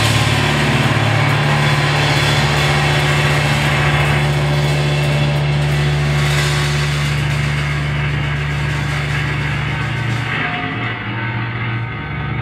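Live experimental sludge-rock band holding a loud, sustained distorted low drone under a dense noisy wash, with drums, bass and synth. About ten seconds in, the high hiss cuts away, leaving the low drone.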